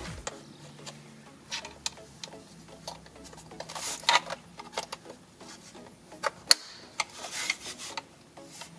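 Hard plastic trim scraping and clicking as a screwdriver pries at the clips of a BMW E90 center dash vent, with one sharp click about six and a half seconds in.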